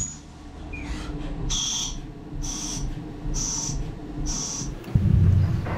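Tornos GT 32 Swiss-type CNC lathe threading a brass bar: four short high-pitched cutting sounds about a second apart, one for each threading pass, over the low running of the machine. Near the end, a loud low thump.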